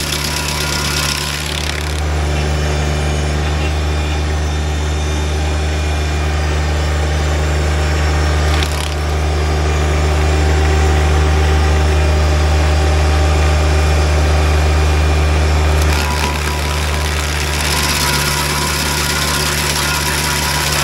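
Tractor PTO-driven stump grinder running, its 24-inch carbide-toothed wheel grinding into a wood stump over the steady drone of the tractor engine. The sound gets louder from about two seconds in and eases back around sixteen seconds.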